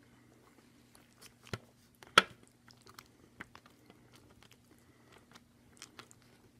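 Close-up chewing and mouth clicks from someone eating, with a plastic fork scooping in a foam bowl of macaroni and cheese. A sharp click about two seconds in is the loudest sound.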